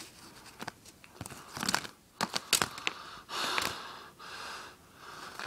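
Handling noise close to the camera: a quick series of knocks and clicks as the camera is propped against the desk, then a few bouts of rustling and crinkling about halfway through.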